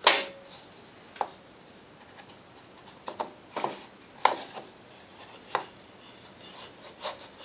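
Wooden box-joint boards being handled and their cut fingers pushed together, making about seven scattered sharp wooden knocks and clacks, the loudest at the very start.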